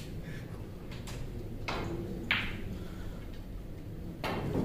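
Snooker balls clicking: a few sharp knocks, the loudest a little over two seconds in, over a steady low room hum.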